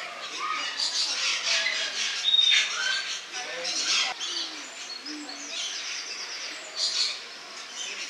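Rainbow lorikeets chattering and screeching: a busy run of short, harsh, high calls with a few brief whistles. The loudest shrieks come about two and a half seconds in and again near the end.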